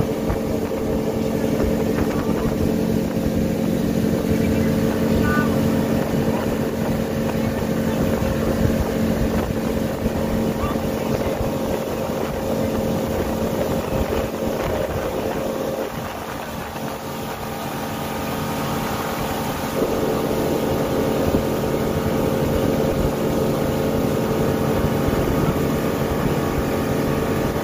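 Outboard motor driving a motorboat at speed, with a steady engine drone over the rush of water from the hull and wake. The engine note dips for a few seconds past the middle, then comes back up.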